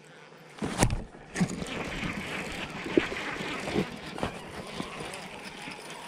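Knocks and bumps on a plastic fishing kayak, the first and sharpest a little under a second in, over a steady rush of wind and water.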